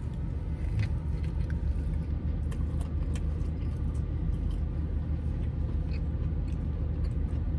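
Steady low rumble of a car, heard from inside the cabin, with faint scattered clicks of chewing as a man eats a soft, gravy-dipped Italian beef sandwich.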